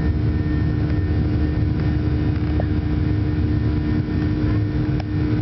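Boeing 737 cabin noise during the initial climb after takeoff: the jet engines at climb power give a steady low rumble with a constant hum.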